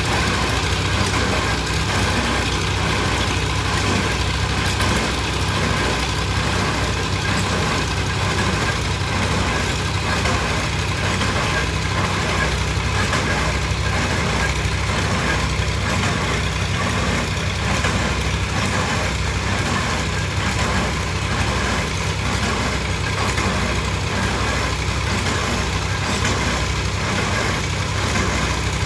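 Engine of piling machinery running steadily at an even speed.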